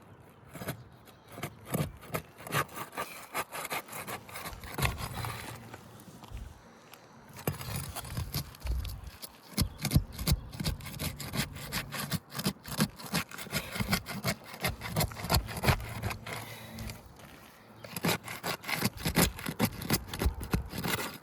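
A Roof Snake shingle-unsealing tool scraping and prying under asphalt shingles, breaking them free of their sealant strips, in quick repeated strokes with a couple of short pauses.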